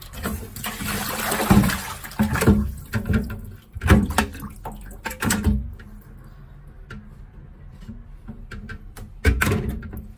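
Water sloshing and pouring out of a plastic salad spinner bowl into a stainless steel sink, followed by several sharp knocks of the plastic bowl and basket being handled, with a last knock near the end.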